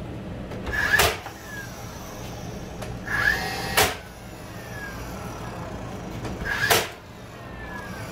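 DeWalt cordless nailer firing three times, about three seconds apart: each shot is a short motor whir ending in a sharp crack as a nail is driven into the wooden window trim, followed by a falling whine as the motor winds down. A steady low hum lies under it.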